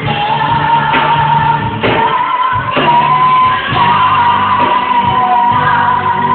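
A woman singing over backing music, holding one long high note that steps up a little in pitch partway through.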